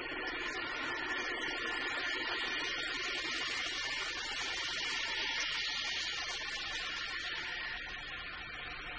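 Steady electronic drone from the film's synthesizer score: a hissing, humming texture that swells through the middle and eases off near the end.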